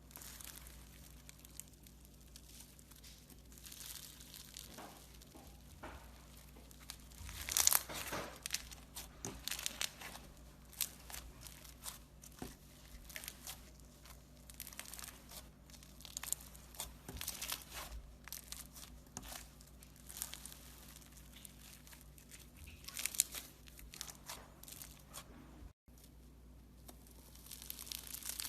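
Crisp, irregular crunching and crackling of a brittle, crumbly material being crushed, with the loudest crunches about eight seconds in. The sound cuts out for an instant near the end.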